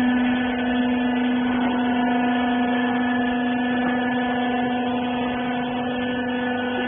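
Hydraulic wiper-rag baler running: its electric motor and pump give a steady, even hum.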